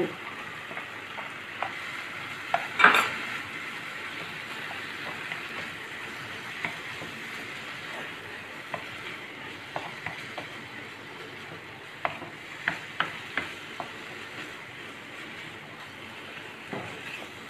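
Freshly added chicken mince sizzling in a frying pan with onion and tomato masala as it is fried, while a spatula stirs and scrapes it. Scattered clicks of the spatula against the pan, with one louder knock about three seconds in.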